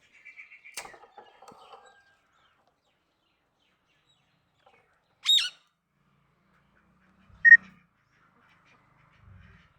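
A pet parrot calling: soft chatter in the first two seconds, then one loud sharp squawk about five seconds in and a short, loud whistled note a couple of seconds later.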